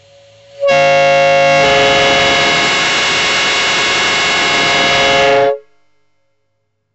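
Replica four-trumpet train air horn, fed from a 12 V compressor and air tank through a ball valve, sounding one long blast of about five seconds. It starts with a faint single note, jumps to a loud chord that fills out about a second later, and cuts off sharply.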